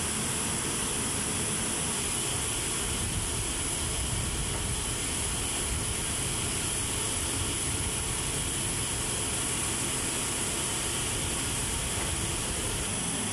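Steady machinery din around a C-5 cargo aircraft: a constant rushing noise with a thin, unchanging high whine, like aircraft ground power equipment running.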